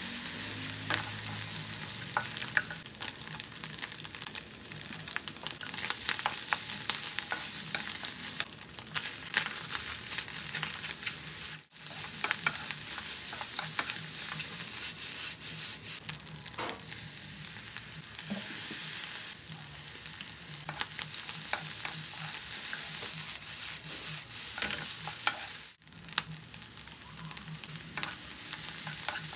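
Fried rice sizzling in oil in a non-stick wok as a wooden spatula stirs and tosses it, with many small clicks and scrapes of the spatula against the pan. The sound breaks off abruptly twice, briefly.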